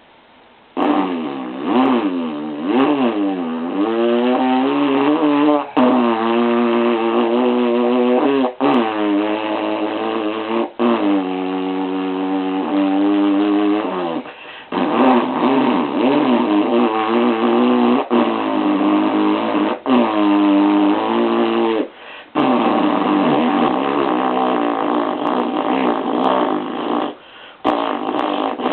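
A voice imitating a motorcycle engine with buzzing lips, the pitch sliding up and down like revving. It comes in long runs broken by short pauses for breath.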